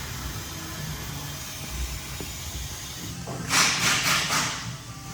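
Compressed air hissing in one loud burst of about a second near the end, as a tire with an inner tube is inflated. A steady low shop hum runs underneath.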